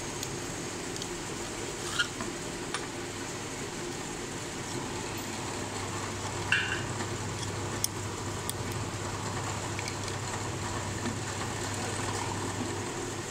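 A few small metallic clinks and taps from tools and parts of a Newlong sewing machine's mechanism being worked on by hand, some with a brief ring. They sound over a steady low machine hum.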